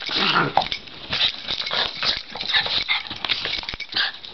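Two Cairn terriers play-wrestling: rapid scuffling and snapping with a short growl near the start.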